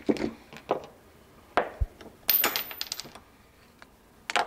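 Light metallic clicks and knocks of small steel parts and a steel shaft being picked up, handled and set down on a wooden workbench, with a cluster of quick clinks and a brief high ring around the middle and a louder clack near the end.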